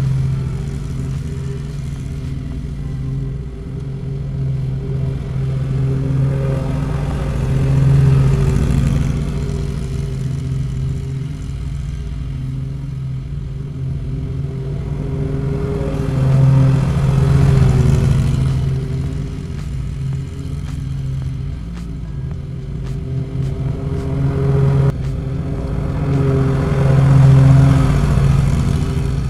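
Exmark zero-turn riding mower running steadily while mowing, with a low engine hum. It swells louder three times, about a third of the way in, in the middle and near the end, as the mower passes close by on each mowing pass.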